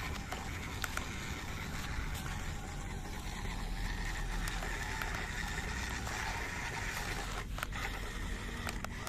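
Radio-controlled toy jeep driving over rough ground: its small electric motor whines and swells about four seconds in, over a low rumble with scattered clicks and knocks from the wheels and chassis.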